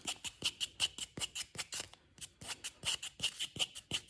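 A 1075 steel knife blade being stropped in quick back-and-forth swishing strokes, about five a second, with a brief pause about two seconds in, to touch up a slightly dulled spot on the edge.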